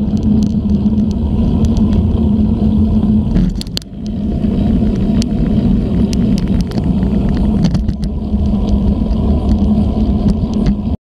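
Wind buffeting and tyre rumble on the mic of a bike-mounted GoPro, a steady low roar with scattered rattling clicks from bumps in the path. It dips briefly a few seconds in and cuts off abruptly near the end.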